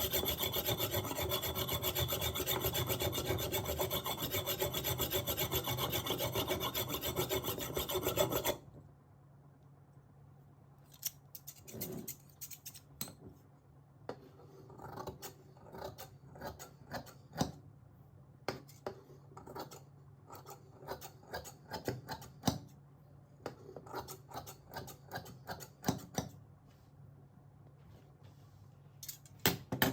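Scissor blade being sharpened against an abrasive with a fast, steady rasping rub, which stops abruptly after about eight and a half seconds. After that come scattered light clicks and snips of the scissors being handled.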